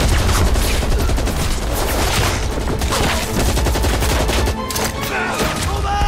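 Heavy gunfire in a war-film battle soundtrack: rifles and machine guns firing in dense, rapid volleys over a deep low rumble, thinning out after about four and a half seconds. Music plays underneath.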